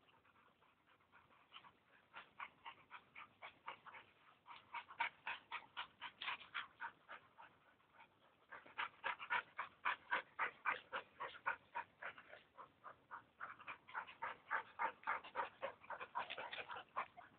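A dog panting quickly, about five breaths a second, in three long runs with short pauses between.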